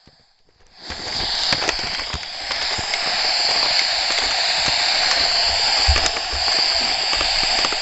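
A steady rushing hiss that starts about a second in, with occasional low thumps underneath.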